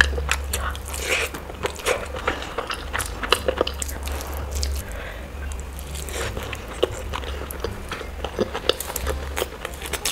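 Close-miked eating by hand: fingers squishing and scooping rice and mutton curry, then chewing a large mouthful, with many short, sharp mouth and finger clicks.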